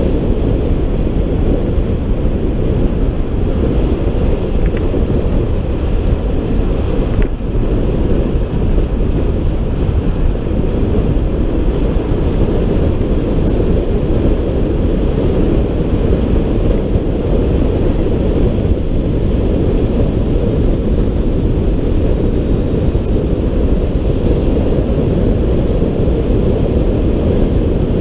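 Steady, loud wind buffeting an action camera's microphone on a bicycle descending at speed.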